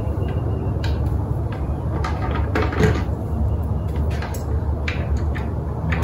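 Scattered clicks and knocks from hands working at an electric bike's down-tube battery compartment, pulling out packing foam, over a steady low hum.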